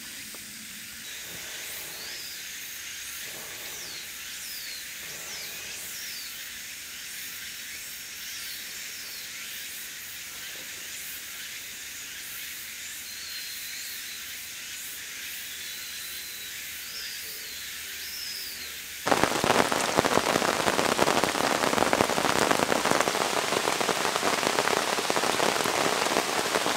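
Heavy rain starts suddenly about two-thirds of the way through and pours down loudly on the forest. Before that there is only a steady quiet high hiss with short chirps.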